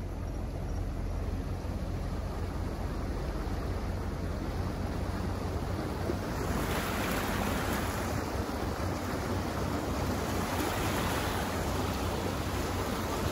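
Vehicle driving through floodwater, heard from inside the cabin: a steady low road-and-engine rumble, with a louder hiss of water spraying and sloshing around the tyres and underbody starting about six and a half seconds in.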